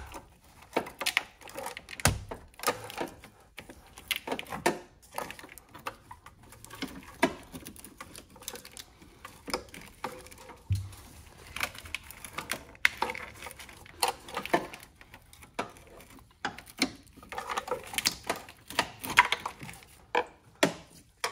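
Irregular clicks, knocks and scraping as a rusted steel heater hose coolant pipe is worked and twisted out of a 2004 Dodge Stratus engine bay. The corroded pipe is breaking apart as it comes out.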